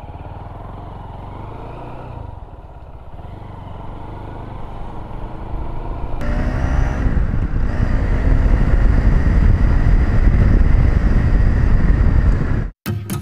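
Motorcycle engine running at low speed, then accelerating about six seconds in, its pitch rising, with wind rushing over the microphone growing louder. The sound cuts out briefly near the end.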